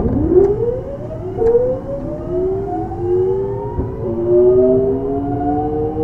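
Early Mitsubishi GTO-VVVF inverter of a Kintetsu 3200-series electric train whining as the train accelerates. The whine is several stacked tones rising together in pitch, jumping to a new set of tones a few times as speed builds.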